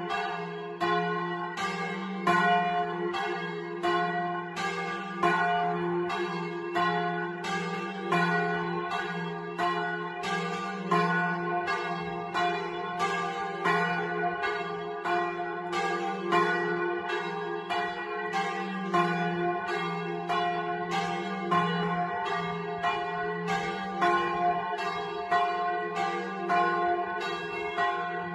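Two swinging bronze church bells, tuned to F3 and G3, ringing a Lucchese doppio: a fast, regular run of alternating strokes whose tones overlap and ring on without a break.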